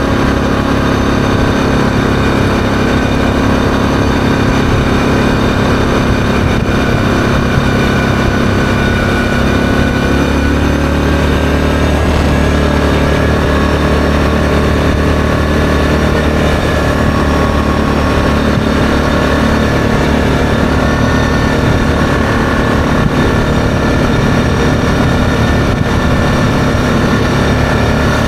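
ATV engine running steadily under way, heard close up from the machine itself. The engine note changes about ten seconds in.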